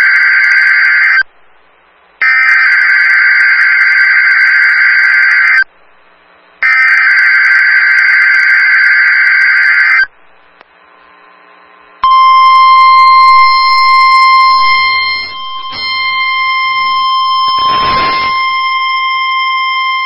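NOAA Weather Radio emergency alert signal during a Required Weekly Test: three bursts of the buzzy, warbling SAME digital header, each about three and a half seconds long with short gaps. After a brief pause, about twelve seconds in, the steady 1050 Hz warning alarm tone comes on and holds.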